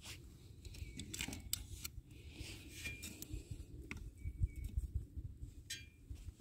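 Dry split kindling sticks clicking and knocking together as a stick is laid onto a small tinder fire, over a low rumble of wind on the microphone.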